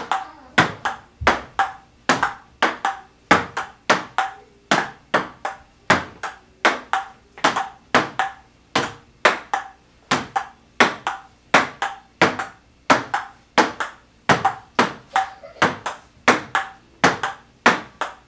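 Table tennis rally: a celluloid ping-pong ball clicking off paddles and the table in a steady, even rhythm, about three sharp clicks a second.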